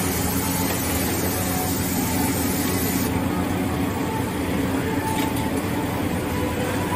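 Steady mechanical hum and noise of machinery running in a workshop, constant throughout with no distinct knocks or starts.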